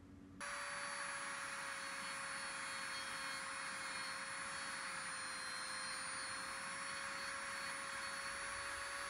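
Handheld rotary tool running at a steady high speed, its abrasive wheel grinding the paint on a die-cast model car body: an even high whine over a grinding hiss that comes in abruptly about half a second in.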